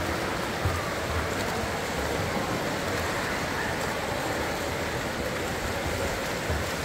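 Steady wash of splashing water from water polo players swimming and churning in the pool, with faint distant shouts now and then.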